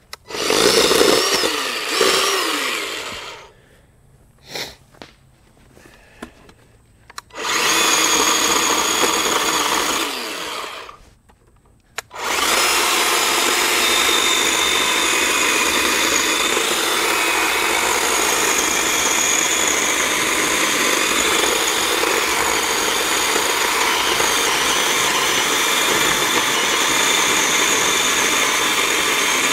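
Greenworks 40V battery-powered 12-inch electric chainsaw. Its motor spins up and winds down in short trigger pulls over the first few seconds, runs again briefly, then from about twelve seconds in runs steadily through a log. It struggles a little in the cut, which the owner puts down to the saw being underpowered.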